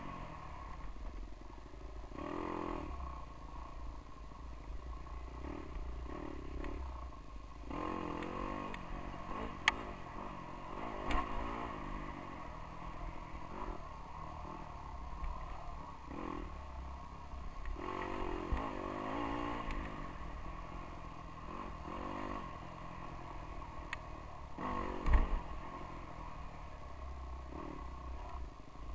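GasGas dirt bike engine revving up and down in repeated bursts as it is ridden along a bumpy trail, with a few sharp knocks over the run.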